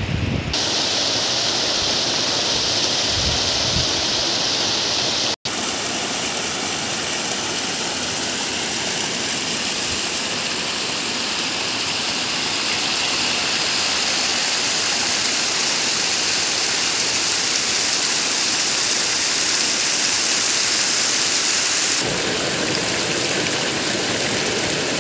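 Small rocky mountain stream rushing and splashing over stones, a steady hiss of running water. It drops out for an instant about five seconds in and changes tone near the end.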